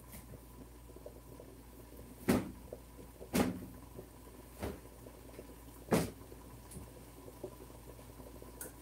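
A few sharp knocks or bangs in a kitchen, spaced a second or more apart, the loudest about six seconds in, over a faint steady hum.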